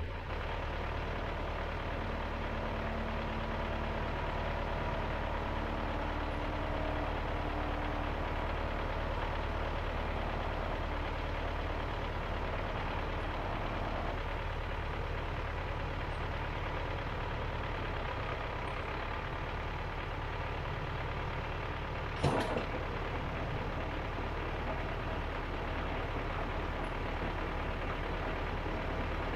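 Tractor engine running steadily while hitched to a SWAN AGRO rotary tiller (soil cutter), with one sharp knock about two-thirds of the way through.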